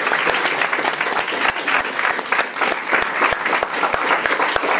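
Steady applause: many hands clapping together.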